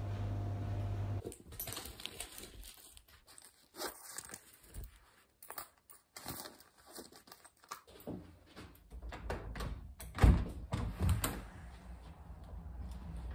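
A steady hum that cuts off about a second in, then close rustling, crinkling and light clicks and knocks of someone handling things near the microphone, with one sharp knock about ten seconds in.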